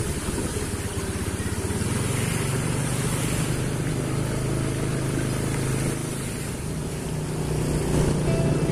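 Engine of the motor vehicle carrying the camera, running steadily as it travels, with a hiss of tyres and wind over the wet road.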